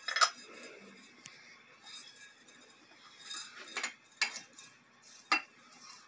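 Glass and metal clinking as the glass bowl shade and bulb of a ceiling-fan light are handled: about five sharp separate clicks, the loudest near the end.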